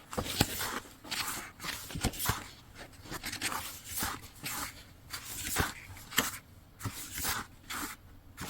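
Irregular rustling and a few sharp light clicks of merchandise and packaging being handled during an unboxing.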